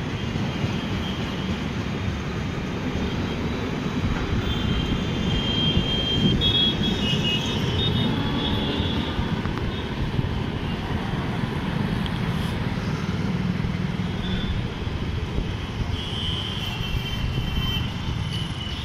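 Express train's coaches rolling past at speed: a steady rumble and clatter of wheels on rail, mixed with road traffic. Thin high-pitched tones come and go about a third of the way in and again near the end.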